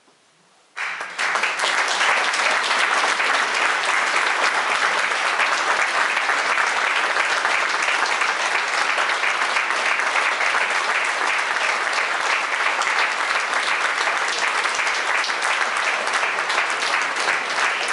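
Audience applauding, breaking out suddenly about a second in after near silence and going on steadily.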